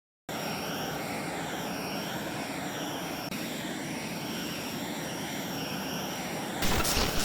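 Steady mechanical drone sound effect, engine-like, with a slow wavering warble and a thin high whine over it; a louder, rougher rush of noise comes in near the end.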